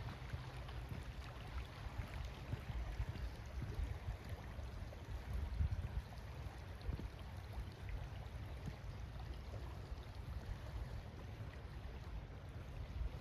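River water flowing with a steady rush, under a low, uneven rumble.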